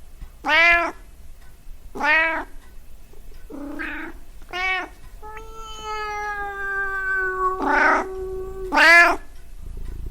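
Domestic cat meowing: a series of short meows every second or two, with one long drawn-out call held for about three seconds in the middle, its pitch sinking slowly.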